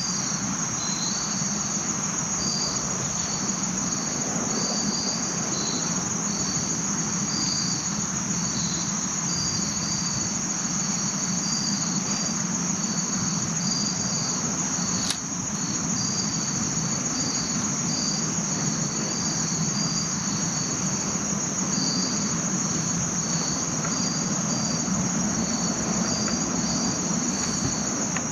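Insect chorus in woodland: a steady high-pitched trill with short chirps repeating irregularly over it. One brief click about halfway through.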